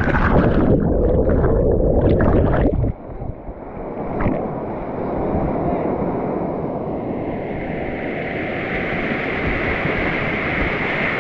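Whitewater rapid with water crashing and splashing loudly for about the first three seconds as a kayak runs through it, then settling to a steady rush of river water.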